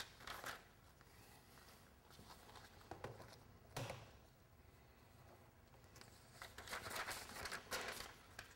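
Paper pages of a manual being leafed through and handled, soft rustles about half a second in and near four seconds, then a longer run of rustling over the last two seconds, between stretches of near quiet.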